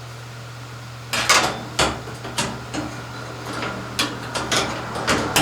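Irregular clicks and clanks of hand tools and fasteners being handled while working on a washing machine's drain pump, starting about a second in, over a steady low hum.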